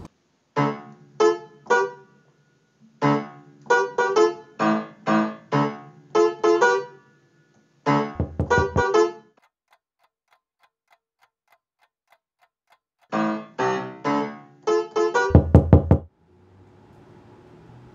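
Alesis electronic keyboard played in short phrases of single notes and chords, with a long pause between them. Two brief clusters of heavy low thumps come in, one about eight seconds in and a louder one near the end.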